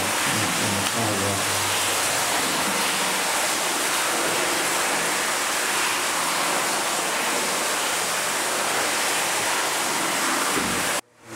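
Steady, loud rushing noise of equipment running in a subway tunnel pump room. It drops out abruptly for a moment near the end.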